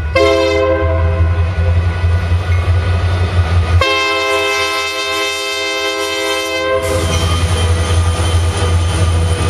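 Union Pacific EMD SD70M diesel locomotive passing close, its engine running with a heavy low rumble. Its multi-note air horn gives a short blast at the start and a long blast of about three seconds about four seconds in.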